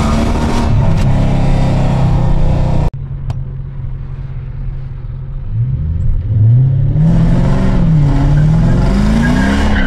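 Toyota Mark II's engine heard from inside the cabin, running steadily. It breaks off abruptly about three seconds in and resumes as a quieter idle. From just past halfway the revs rise and fall several times and grow louder as the car accelerates.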